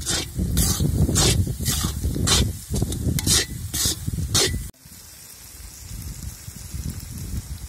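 Steel spatula scraping and stirring thick onion-tomato masala in an iron kadai, about two strokes a second. The strokes stop abruptly about five seconds in, leaving a fainter steady hiss.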